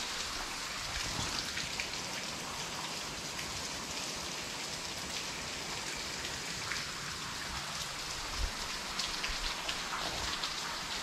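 Steady, rain-like patter of water dripping and trickling from the cave's rock overhang, with a few soft taps.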